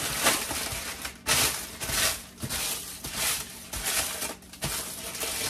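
Crumpled parchment paper crinkling and rustling in a run of irregular bursts as it is pulled open and smoothed flat by hand.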